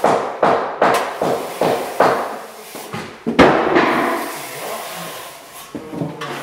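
Steady knocking on a wall, about two and a half blows a second, each ringing briefly in the room. A single louder bang comes about three and a half seconds in, and a few lighter knocks come near the end.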